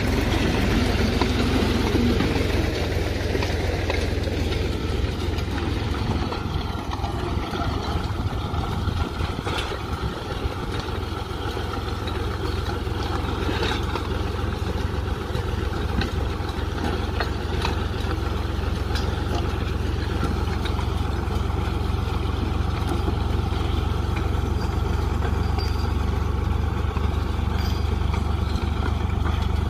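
Compact tractor engine running steadily, pulling a plastic mulch film laying machine, a constant low hum with a few faint clicks.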